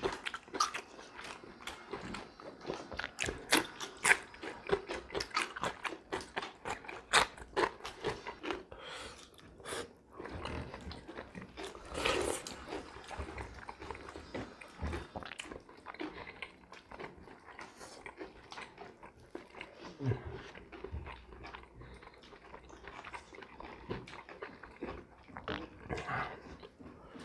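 Close-up eating sounds: crisp biting and chewing of cucumber slices and wet mouth noises, with hands working rice on the plates. The result is many small irregular clicks and crunches, busiest in the first ten seconds and sparser after that.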